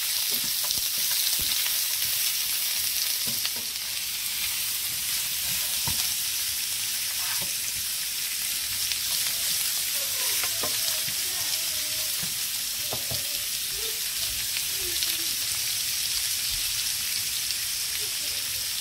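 Lamb ribs sizzling steadily as they fry in oil in a nonstick pan, with occasional short knocks from a wooden spatula stirring them.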